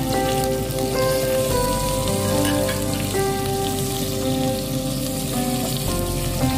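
Squash, green beans and sliced onions sizzling in hot oil in a pot as a wooden spatula stirs them, under instrumental background music whose held notes change about once a second.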